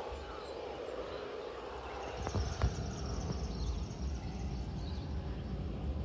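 Outdoor bushland ambience: a steady low rumble, a couple of soft knocks about two and a half seconds in, and faint high-pitched calls in the background.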